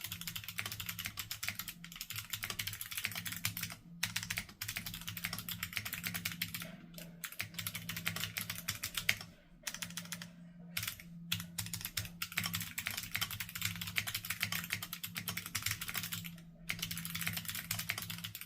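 Fast typing on a mechanical keyboard fitted with NovelKeys Cream Clicky switches: a dense run of sharp clicks, broken by a few brief pauses.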